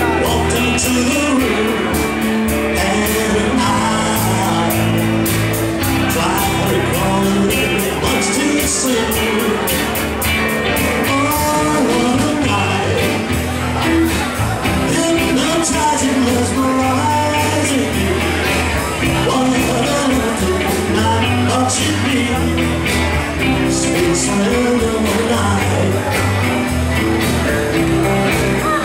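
Live rock and roll band playing: electric guitars, electric bass and a drum kit keeping a steady beat, with a man singing lead.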